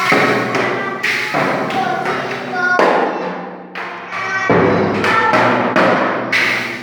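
Loud music of hard struck notes, one to two a second, each ringing out and fading before the next.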